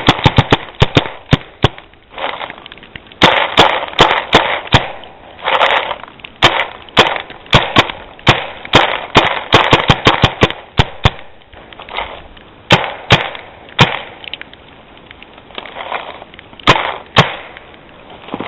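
Paintball gun firing over and over, single shots and quick strings of several in a row.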